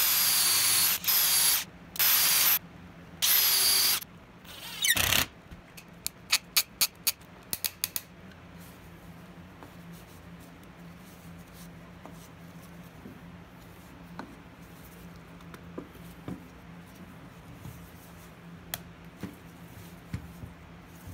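Cordless drill with a countersink bit boring into a plywood ring, run in four short bursts, the last one rising. A quick run of sharp clicks follows, then quieter handling sounds.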